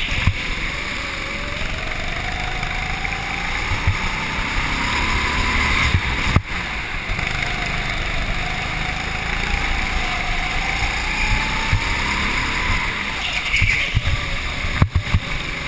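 Go-kart engine heard from on board, its pitch climbing as it accelerates and dropping as it lifts for the corners, several times over, above a low rumble.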